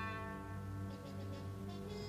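Orchestral underscore music, with brass holding long sustained notes.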